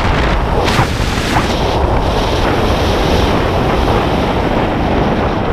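Strong wind rushing over the microphone during a fast swoop landing under a parachute canopy, as the jumper skims in low over the grass.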